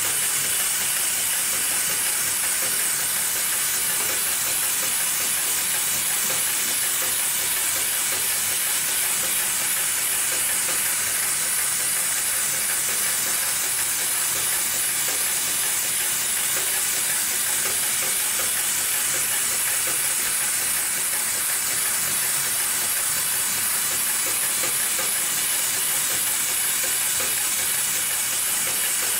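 Automatic industrial sewing machine running steadily as it stitches through a thick stack of cotton cloth to make a buffing wheel, with a steady hiss over it.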